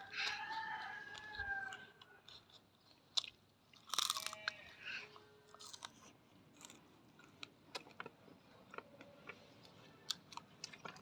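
Close-up mukbang eating: a person chewing and crunching food, with scattered short wet mouth clicks.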